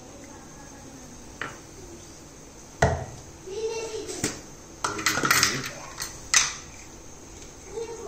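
Crockery clinking and knocking as cups and milk are handled: a handful of sharp knocks, the loudest about three seconds in, a quick cluster around five seconds and another near six.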